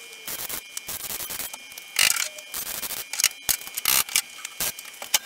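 MIG welder putting tack welds on the steel rear panel of a car body: short bursts of arc a few tenths of a second long, about two seconds in and again about four seconds in, with small clicks and knocks between them.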